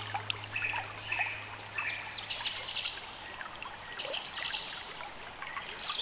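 Small birds chirping and singing in quick runs of short descending notes over the steady trickle of a stream, a recorded nature soundscape. A low held note of background music fades out within the first two seconds.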